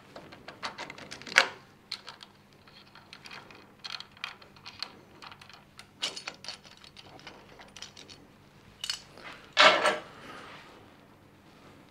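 Small metal engine parts and hand tools clinking and rattling as a scooter engine's top end is taken apart, with a louder metallic clatter about a second and a half in and again near the end.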